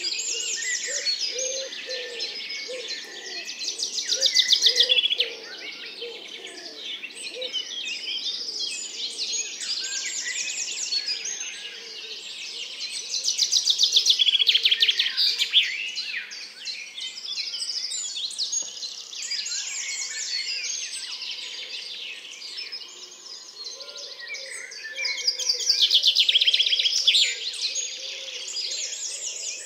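Woodland birdsong with several species singing at once. A song thrush repeats its phrases throughout, and loud, fast trilled songs build up about every ten seconds: a Eurasian wren near the start and end, and a common chaffinch in the middle. A common chiffchaff sings too, and a common woodpigeon coos low at the start and again near the end.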